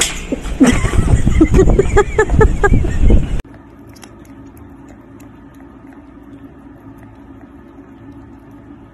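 Loud pitched calls that bend in pitch, cut off abruptly about three seconds in. Then a cat licks a lickable treat from a squeeze tube: faint licking ticks over a low steady hum.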